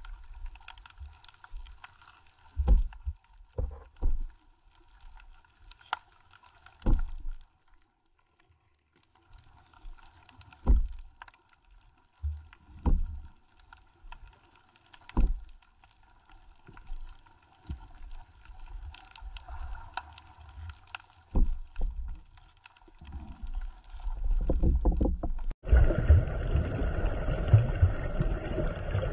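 Muffled underwater sound picked up by a camera held in the water: irregular low thumps and sloshing of water moving against it, over a faint hum. Near the end it switches abruptly to a louder, steady rushing noise.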